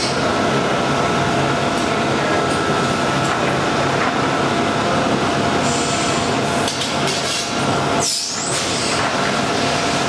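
Steady, loud machine noise from a pneumatic snack stick cutter running as it cuts meat sticks, with a constant hum and scattered faint clicks. A brief high squeak comes about eight seconds in.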